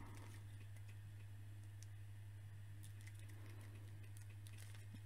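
Faint small clicks and rubbing of a McFarlane Warhammer 40,000 action figure's plastic joints as its arms are bent by hand, over a steady low hum.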